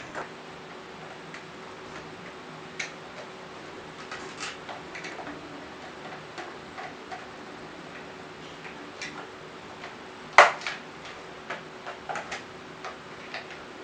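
Small screwdriver driving screws into a plastic telephone casing: scattered light ticks and clicks, with one louder sharp knock about three-quarters of the way in.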